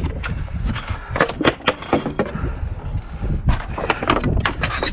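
Irregular clatter of knocks and rattles over a low rumble.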